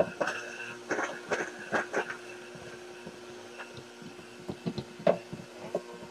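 Vitamix blender running, grinding Oreo cookies into fine crumbs. Chunks of cookie knock against the jar, often in the first two seconds and a few more times around five seconds in, over the steady hum of the motor.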